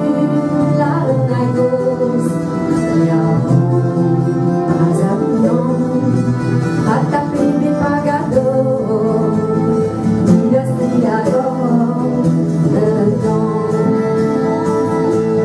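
A woman singing a Breton song at a microphone, accompanied by acoustic guitar and other plucked strings.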